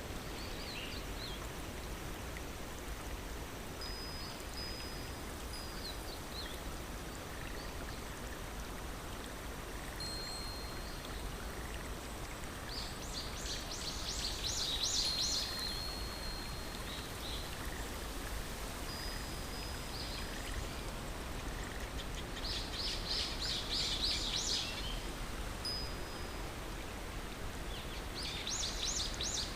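Steady rush of running water with birds singing over it: short high whistled notes every few seconds, and a fast trilled phrase about halfway through, again about three quarters through and near the end.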